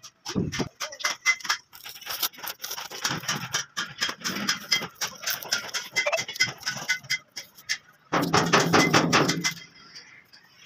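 Masking tape and paper crackling as they are peeled by hand off a freshly spray-painted truck cab, in quick irregular crackles and clicks. A louder, denser burst of noise lasting about a second and a half comes near the end.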